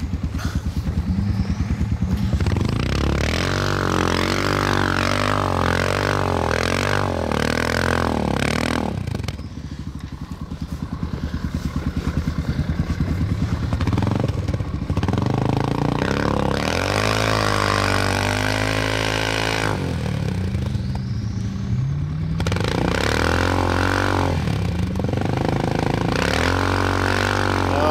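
ATV engine revving hard over and over, its pitch climbing and dropping with each burst, as the machine is driven to spin its way out of a deep snow drift; there is a brief lull about nine seconds in.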